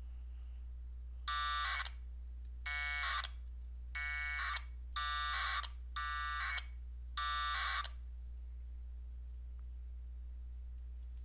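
1200-baud AFSK packet radio bursts from a transceiver: six short, shrill data bursts of about half a second each, coming roughly a second apart over the first eight seconds, under a steady low hum. These are AX.25 frames passing over the air between the Direwolf station and the LinBPQ node while the connection is being tried.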